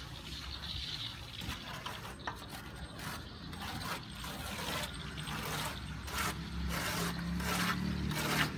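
Plastering trowels and floats scraping over fresh cement render on a wall in repeated rasping strokes, louder and quicker in the second half.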